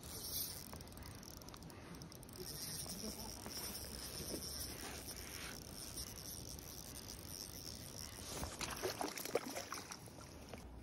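Spinning reel being cranked steadily as a hooked trout is played in, with a faint continuous whir. Near the end the trout thrashes and splashes at the surface as it is scooped into a landing net.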